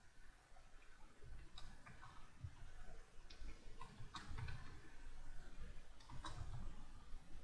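Computer keyboard keys being typed slowly, irregular single clicks a fraction of a second to a second or more apart.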